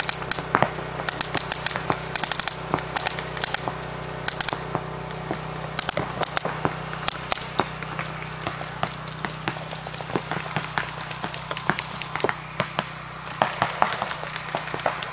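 Paintball markers firing: irregular rapid strings of sharp pops, thinning out in the middle and picking up again near the end.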